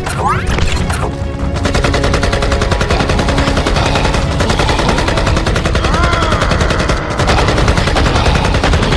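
A loud, rapid, continuous rattle of many strikes a second, with background music under it.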